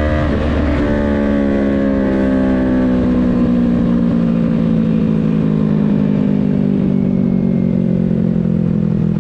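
2023 Yamaha MT-03's 321 cc parallel-twin engine and exhaust, its revs falling slowly and steadily as the bike decelerates. The note is uneven for about the first second.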